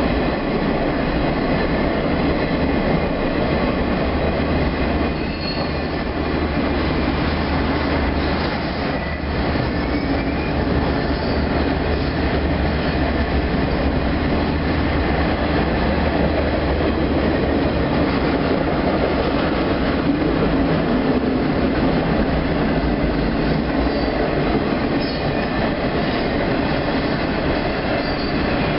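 Intermodal freight train rolling steadily through a grade crossing: a continuous rumble of flatcar wheels on the rails, with a few brief faint wheel squeals.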